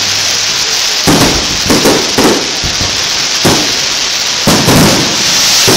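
Aerial fireworks shells bursting overhead: a run of about seven loud bangs, several coming close together, over a steady hiss.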